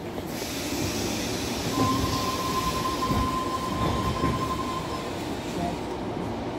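Tangara T set electric train pulling away from a platform, heard from inside the carriage: steady rumbling running noise from the Mitsubishi four-quadrant GTO chopper traction equipment, with a steady high whine for a few seconds in the middle.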